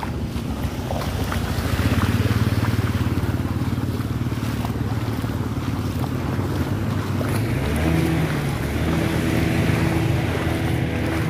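Motor vehicle engines running, with wind buffeting the microphone. A steadier engine hum with a clear pitch comes in about seven seconds in.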